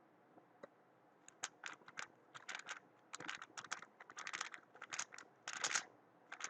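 Weilong WRM 2019 speedcube being turned by hand: quick plastic clacks in short rattling bursts with brief pauses between, starting about a second in.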